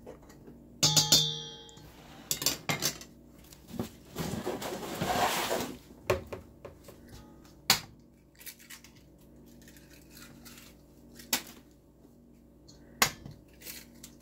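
A stainless steel mixing bowl being worked: a loud ringing clang about a second in, a stretch of scraping and rustling a few seconds later, then a few sharp single taps against the bowl as eggs are cracked into it.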